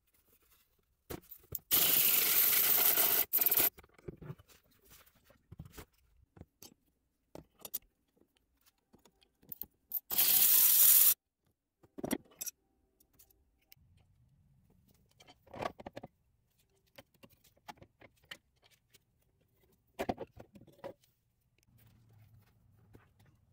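Cordless power tool spinning the Honda CR-V's rear shock top mounting nut through a socket on a long extension, in two loud bursts: about two seconds long near the start and about one second near the middle. Scattered clicks and metal knocks of the socket and tools come between the bursts.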